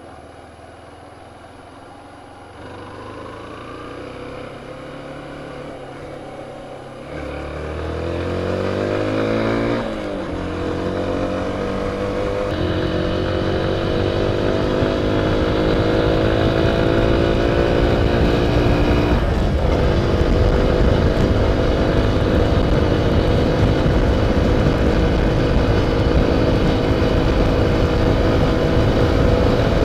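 Yamaha YBR motorcycle's single-cylinder four-stroke engine, low at first, then revving up through the gears with two shifts a little after a third of the way in, and settling into a steady, slowly rising note at cruising speed. Wind noise on the microphone grows with the speed.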